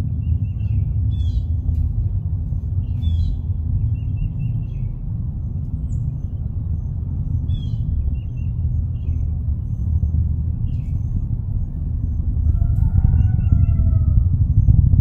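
Low, steady rumble of a rocket climbing after launch, growing louder near the end, with small birds chirping over it. A rooster crows once near the end.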